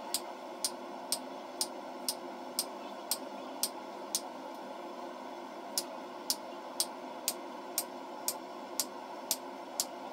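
Hammer blows from a striker landing on a handled hot-cut chisel that is splitting a red-hot steel bar on the anvil, about two blows a second, with a pause of about a second and a half near the middle. A steady hum from the lit gas forge runs underneath.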